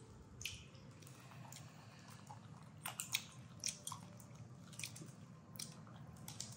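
Monkeys biting and chewing grilled corn: faint, irregular little crunches and smacks.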